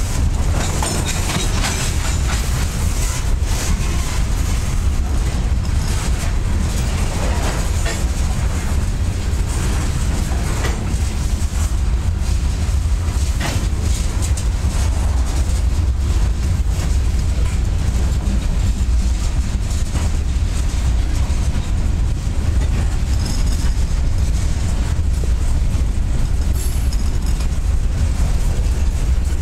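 Freight train cars (covered hoppers and boxcars) rolling past close by: a steady heavy rumble, with wheels clicking and knocking now and then over the rail joints.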